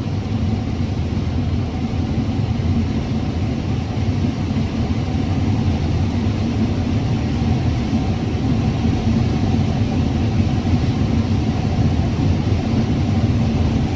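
Combine harvester running steadily while cutting corn: a constant low machine rumble.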